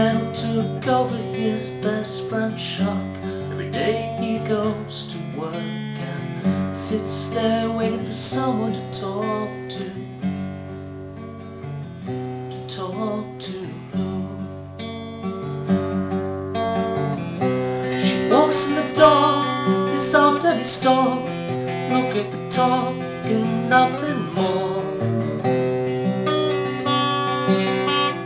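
Steel-string acoustic guitar played by hand, chords strummed and picked in a slow run of notes. The playing dips around the middle and grows fuller and louder about two-thirds of the way through.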